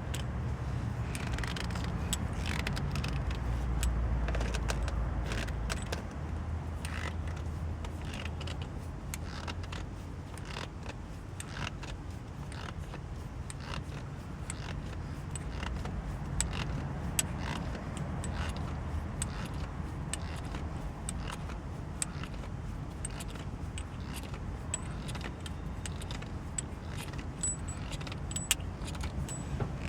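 Light metallic clicking and rattling as a MOMO shift knob is hand-threaded down onto a car's gear lever, over a steady low hum.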